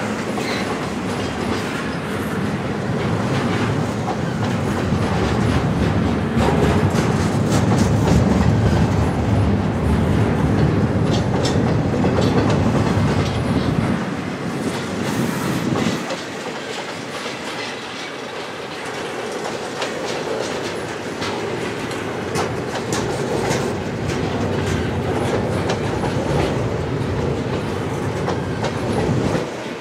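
Double-stack intermodal container cars rolling past close by: a steady rumble of steel wheels on rail with clicks and clatter from the wheels and couplings. The rumble is heavier in the first half and eases about halfway through.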